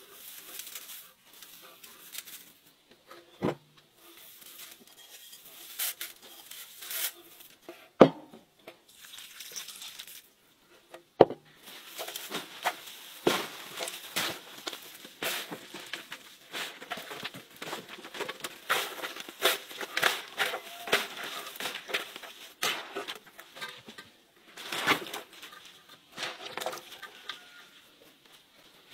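Hands tossing and mixing a large heap of shredded raw vegetables in a metal basin: dense crisp rustling and crunching, with a few sharp knocks in the first dozen seconds.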